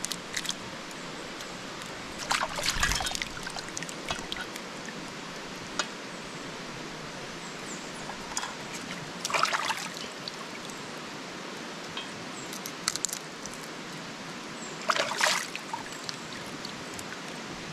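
River water running steadily, with three short louder bursts: about two seconds in, about nine seconds in and near fifteen seconds.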